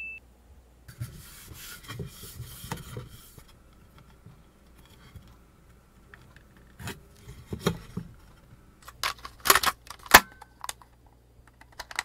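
A pencil scratching along a piece of wood guided by a metal square for a couple of seconds, then scattered sharp clicks and taps, the loudest about nine and a half to ten seconds in.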